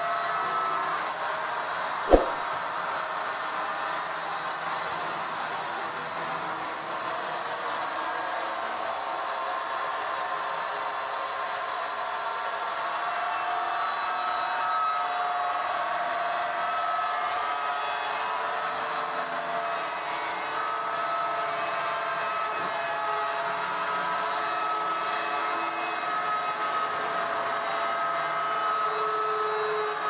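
Horizontal band sawmill running steadily as its blade saws lengthwise through a log. There is one sharp click about two seconds in.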